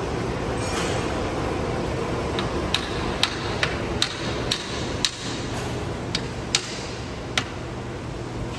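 A hammer tapping a crankshaft main bearing cap down onto a Mercedes-Benz engine block: about ten sharp metallic taps at uneven intervals, starting about two seconds in and ending near the end, over a steady low workshop hum.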